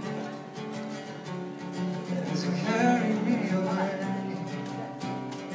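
Acoustic guitar music with a singing voice, a wavering sung line standing out about halfway through.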